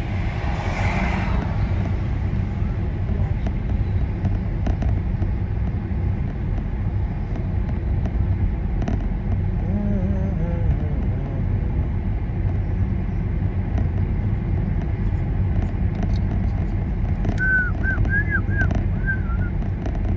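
Steady low rumble of engine and tyre road noise from a car being driven, with a few brief faint pitched sounds around the middle and near the end.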